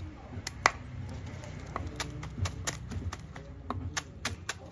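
Knife chopping grass on a cutting board: a run of quick, sharp knocks, several a second, that thin out in the middle and pick up again near the end.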